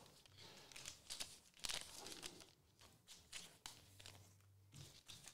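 Near silence with faint, scattered rustles and ticks of trading cards being handled and slid into plastic sleeves.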